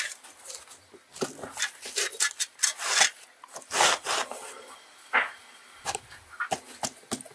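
A strip of fibrous heat-insulating board rubbing and scraping against brick as it is pushed by hand into the gap between the firebrick lining and the facing brick. The scrapes come unevenly, the loudest about three and four seconds in.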